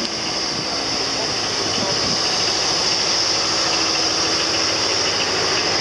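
Engine idling steadily, a low hum under a high hiss, growing a little louder over the first second or two.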